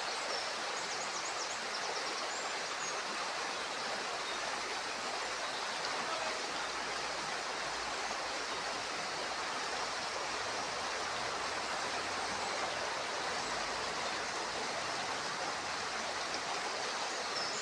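River water flowing, a steady even rushing.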